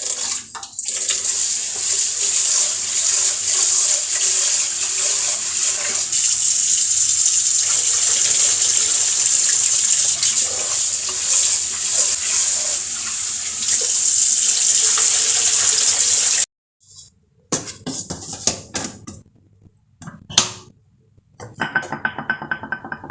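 Water running from a tap into a sink, a loud steady hiss that stops suddenly about sixteen seconds in. Scattered knocks and clatter follow.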